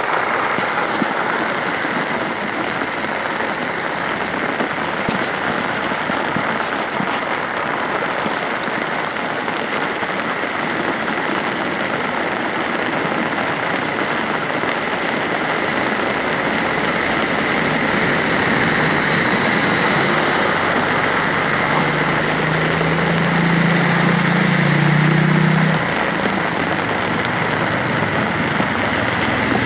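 Steady rush of floodwater flowing across a road, mixed with rain. A low steady hum joins in for a few seconds about three-quarters of the way through.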